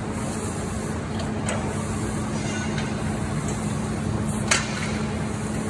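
Steady mechanical hum under two sharp knocks of gear or equipment, the louder about four and a half seconds in.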